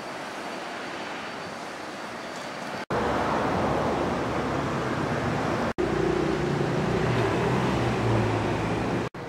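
Urban road traffic: a steady wash of passing vehicles, louder after about three seconds, with a low engine hum in the last few seconds. The sound drops out for an instant three times where the footage is cut.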